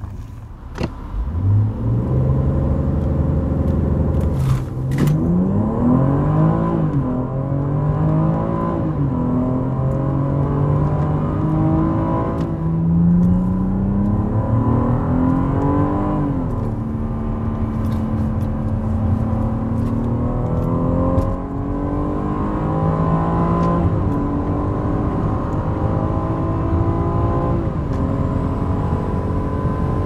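BMW X3 M40i's 3.0-litre turbocharged straight-six under hard acceleration, its pitch climbing and dropping back at each upshift. It then holds a steady, high note at speed.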